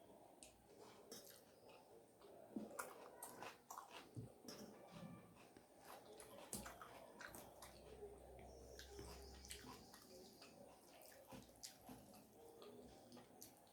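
Faint chewing and wet mouth sounds with scattered small clicks and smacks: a person eating rice with dal and egg curry.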